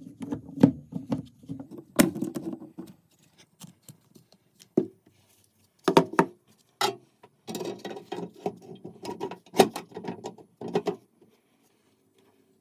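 Hand work on a metal tool: irregular sharp knocks and clicks of metal parts handled and set down, with stretches of scraping between them; the sounds stop about a second before the end.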